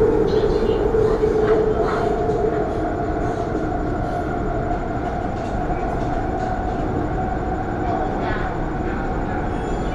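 Elevated metro train running, heard from inside the passenger car: a steady rumble of running noise with a steady whine over it.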